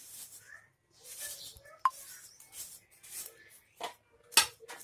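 Steel spoon stirring and scraping a thick moong dal batter in a stainless steel bowl, with a sharp metallic clink about two seconds in and a louder knock near the end.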